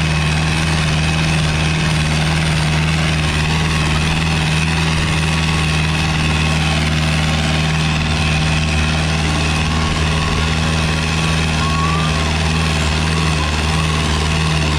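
Farmtrac 6055 tractor's diesel engine running steadily and loud under heavy load, dragging two disc harrows through the soil.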